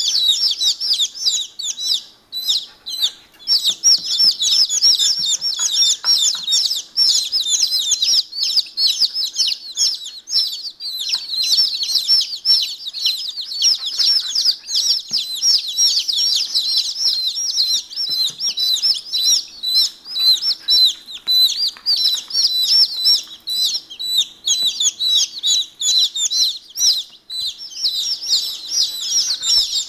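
A brood of day-old chickens peeping constantly, many high, short peeps overlapping in a dense chorus.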